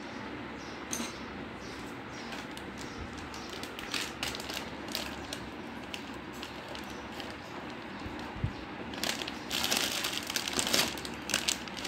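Clear plastic packaging crinkling as it is handled: scattered crackles at first, then a dense stretch of crinkling over the last few seconds as a cloth pouch is pulled out of it.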